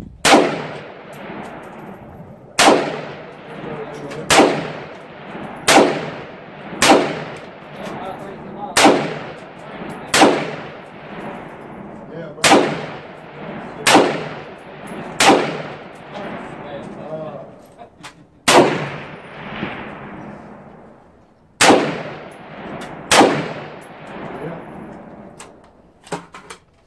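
About fourteen pistol shots, fired one at a time at an uneven pace roughly one to three seconds apart. Each shot is a sharp crack followed by a ringing echo that dies away.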